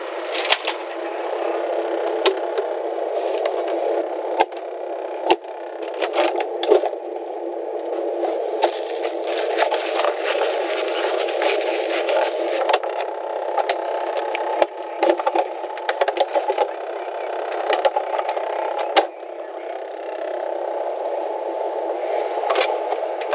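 Handling noises: repeated clicks, knocks and rattles of a cup, its lid and other things being picked up and set down, over a steady muffled hum.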